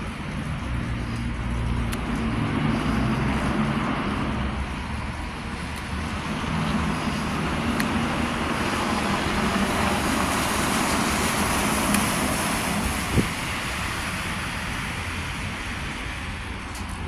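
Vehicle traffic on wet pavement: a low engine hum and tyres hissing on the wet surface, swelling for a few seconds in the middle as a vehicle passes. A single sharp click comes a little after the swell.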